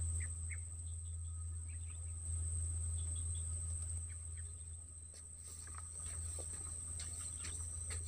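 Steady, high-pitched insect buzz, cricket-like, with a few brief bird chirps scattered through it, over a low steady hum.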